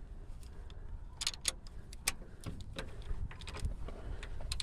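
A 1/2-inch drive ratchet on a long stack of extensions clicking in short, irregular runs as a motor mount bolt is tightened, with a few metallic tool clinks. A low steady rumble lies underneath.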